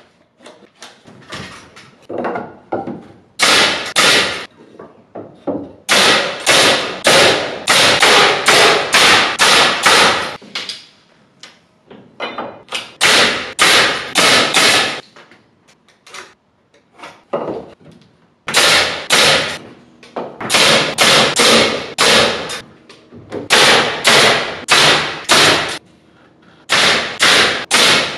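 Pneumatic nail gun firing nails into wood framing, in quick runs of several shots with pauses between. Faint taps come first, for about three seconds.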